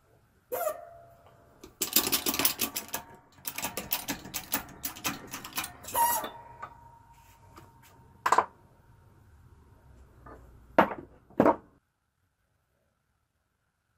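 Steel coin-ring die pieces clinking and clattering as they are set and shifted on a granite plate in a press. About six seconds in, one clink leaves a ringing metal tone, and a few sharp knocks come near the end.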